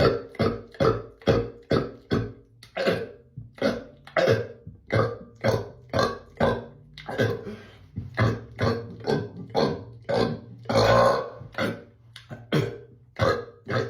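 A man burping deliberately in rapid succession, short loud belches at about two or three a second, with one longer, drawn-out burp about eleven seconds in.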